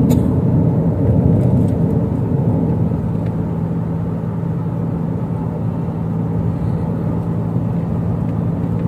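Steady road and engine noise inside a moving car's cabin: an even rumble of tyres on the highway with a constant low engine drone.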